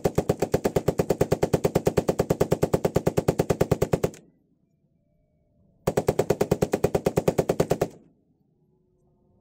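AK-47 rifle (7.62×39 mm) firing on full auto at about ten shots a second. A long burst runs until about four seconds in, and after a pause of under two seconds a second burst lasts about two seconds.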